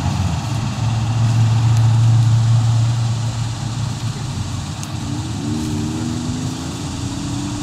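A motor vehicle's engine running with a steady low hum, then its pitch rising slowly from about five seconds in.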